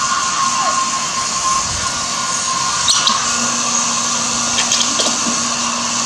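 Hand-held hair dryer running steadily: a constant whine over a rush of blown air, drying a freshly bathed baby monkey's wet fur.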